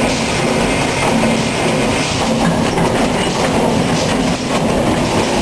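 Two-column baling machine running: a steady, loud mechanical clatter with a low hum.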